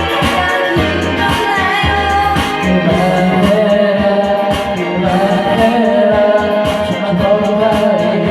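A pop song sung over a backing track with a steady beat: a sung melody above sustained bass notes, from a rewritten cover of a Korean pop duet.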